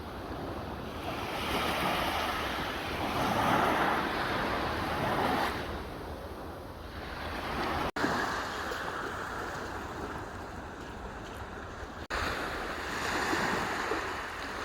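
Sea waves breaking and washing up a shore, the surf swelling and easing every couple of seconds. The sound cuts out for an instant twice, about 8 and 12 seconds in.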